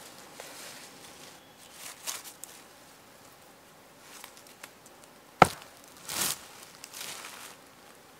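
Loose limestone rocks being handled and stacked on a forest floor, with scraping and the rustle of dry leaves. About five seconds in comes one sharp, ringing clack of stone striking stone.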